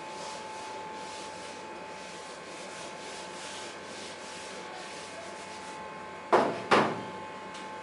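Whiteboard duster rubbing across the board in repeated wiping strokes, then two sharp knocks close together about six seconds in.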